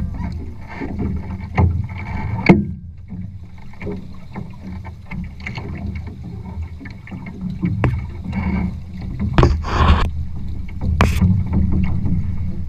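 Water rushing and slapping against the hull of a small sailing trimaran under way, with wind on the microphone. Sharp knocks and slaps break through several times, the loudest about two and a half seconds in.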